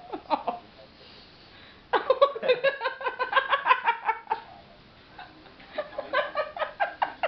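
A person laughing in fits of rapid, high-pitched giggles, starting about two seconds in, pausing, then breaking out again near the end.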